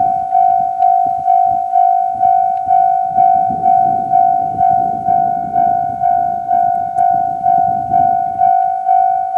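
Japanese level-crossing electronic warning bell in the JR Central style, dinging steadily about twice a second, each strike ringing and fading, signalling that a train is approaching or passing. A low, uneven rumble runs underneath, with a few sharp clicks, as the railcar goes over the crossing.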